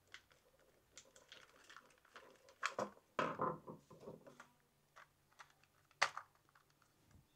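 Small screwdriver working a set screw into a plastic XKRC B6 drone arm: faint scattered clicks and scrapes of plastic and metal, a louder clatter of scraping knocks a few seconds in, and one sharp click near the end.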